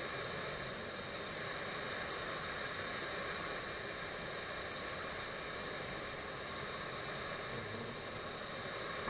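Steady flight-deck noise of a Boeing 737 taxiing: an even rush of air, fan and engine noise with a few faint steady whines.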